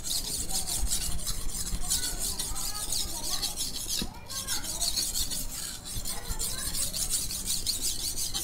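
A Vanadis 8 steel golok blade being stroked back and forth on a Malingping natural whetstone: a continuous gritty scraping, briefly pausing about four seconds in. This is the second side of the bevel being ground on the coarse first stone until the burr turns over.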